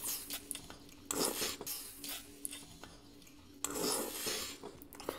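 Close-up eating sounds of a soft steamed dumpling being bitten into: two short wet bites about two and a half seconds apart, with light clicks of chopsticks.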